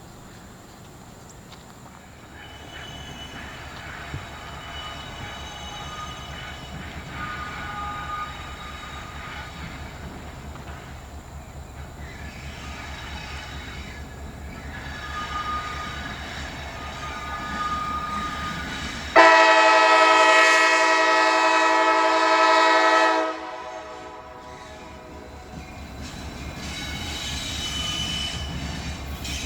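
CSX EMD SD70MAC locomotive running light, sounding its multi-tone chord horn in a series of blasts that grow louder as it approaches. The loudest is one long blast of about four seconds, two-thirds of the way through, with the locomotive's low diesel rumble underneath.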